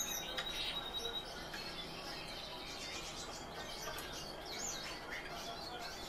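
Tame thrushes chirping: many short, thin, high calls scattered through.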